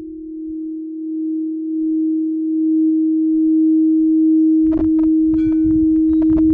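Crystal singing bowl played by rubbing a mallet around its rim, sounding one steady low tone that swells louder, with a fainter higher overtone coming in. A few short clicks near the end.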